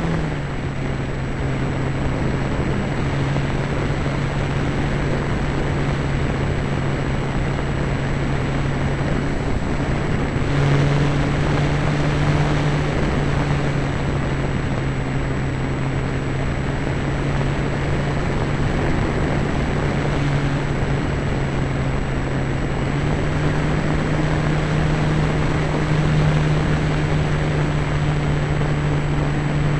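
A radio-controlled model Cessna's motor and propeller, heard from the camera on board in flight: a steady drone over rushing air. The pitch drops as the throttle is eased right at the start, rises briefly about ten seconds in, and rises again a little after twenty seconds.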